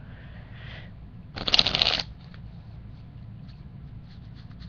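A deck of playing cards being riffle-shuffled: one short burst of rapid clicking about a second and a half in, followed by faint taps as the cards are handled and squared.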